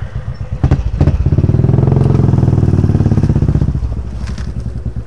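A motorcycle engine pulsing at a low idle, revved up hard about a second in and held loud for about three seconds, then easing back to a low, steady pulsing.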